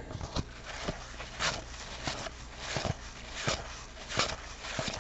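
Cardboard trading cards, 1991 Donruss baseball cards, slid one at a time from the front of a held stack to the back. Each slide is a short dry rustle, about eight of them, roughly one every two-thirds of a second.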